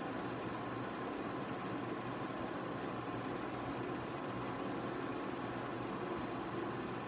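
A film projector running steadily, giving a constant mechanical whirr with a steady hum.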